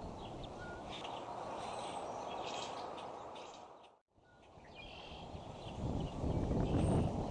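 Outdoor ambience at a bald eagle nest: a steady low background noise with scattered short, high bird chirps. The sound fades out to silence for a moment about four seconds in, then comes back and grows louder.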